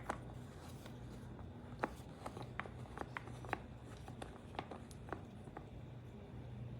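Ultrasonic humidifier running with a low, steady hum, with a dozen or so light, irregular clicks and taps over it.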